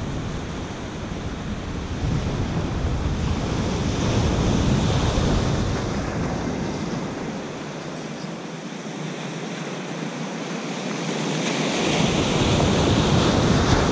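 Ocean surf washing onto a sandy beach, swelling louder about four seconds in and again near the end, with wind rumbling on the microphone that drops away for a few seconds in the middle.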